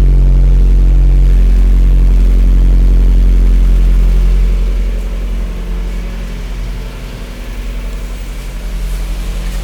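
Car engine idling through an aftermarket exhaust with a Maxim exhaust manifold, a catalytic silencer and an RS AIZAWA muffler: a steady, low rumble. It drops in loudness about halfway through.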